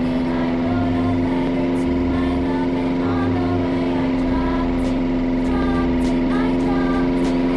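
Ceiling fan running: a steady electric motor hum with faint, short, higher chirps scattered over it.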